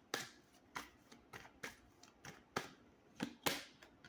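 Tarot cards being handled and shuffled: a string of light, sharp card snaps and slaps at an uneven pace.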